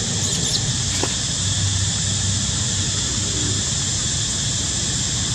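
Steady outdoor background hiss, strongest and high-pitched, over a low rumble, with a faint short squeak about a second in.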